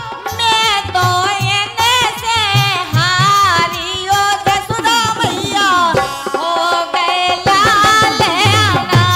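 A woman singing a Kartik devotional folk song with ornamented, gliding melody, accompanied by a hand drum keeping a steady beat.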